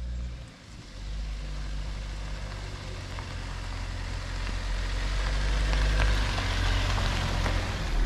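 A Jeep Wrangler driving up a gravel road and passing close by: a low engine rumble with the crunch of tyres on gravel and scattered pebble clicks, growing louder as it approaches.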